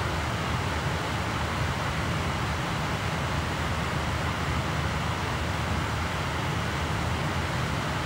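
Laptop optical drive spinning a CD while burning it: a steady whir with a low hum underneath, unchanging in pitch and level.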